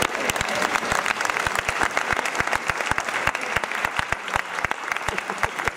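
An audience applauding, many hands clapping at once in a dense, unbroken run.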